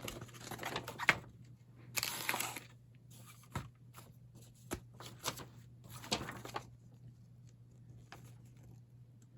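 Paper rustling in several short bursts, with a few light taps in between, as a folded paper user manual is opened and its pages turned.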